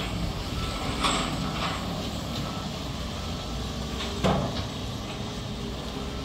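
Diesel engines of wheel loaders running steadily during track work, with a couple of short knocks, the loudest about four seconds in.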